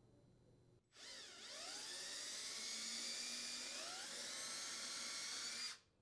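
An electric drill runs for about five seconds with a high motor whine whose pitch dips and climbs a few times as the load changes, then stops abruptly.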